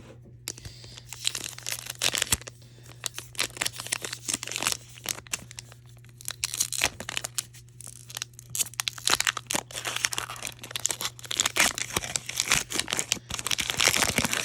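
Foil wrapper of a Pokémon trading-card booster pack being torn open and crinkled: an irregular run of crackling and rustling with many sharp snaps, loudest near the end.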